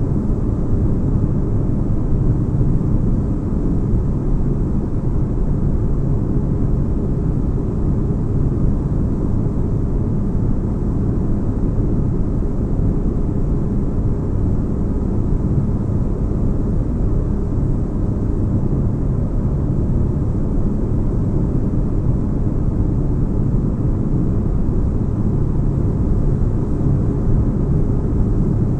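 Steady deep rumbling drone of a synthetic spaceship-interior ambience, a low-pitched white-noise bed with heavy bass.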